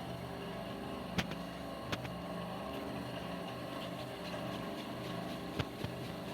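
Steady machine hum from a running motor, with a few sharp clicks or knocks: two in the first two seconds and two close together near the end.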